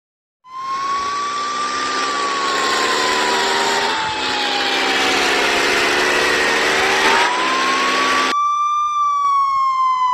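Emergency-vehicle siren sound effect, a slow wail rising and falling, over a vehicle engine running with heavy noise. About eight seconds in, the engine and noise cut off, leaving a cleaner siren tone that keeps gliding.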